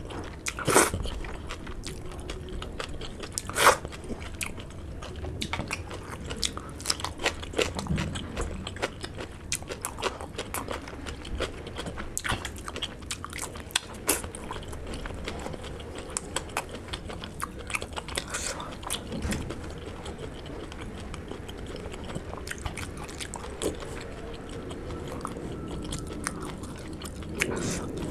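Close-miked eating sounds: a person chewing a last mouthful of rice with lip smacks and wet mouth clicks, and licking curry off his fingers. The clicks are scattered, and the two loudest come in the first few seconds.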